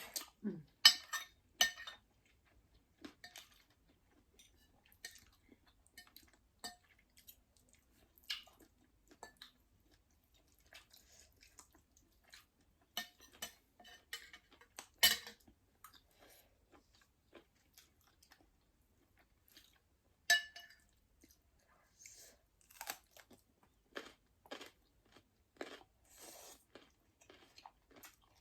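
Close-up eating sounds: chewing and crunching of food, with occasional clinks of utensils against a dish. They come as scattered short sounds with pauses between, the sharpest about a second in, around the middle and about two-thirds of the way through.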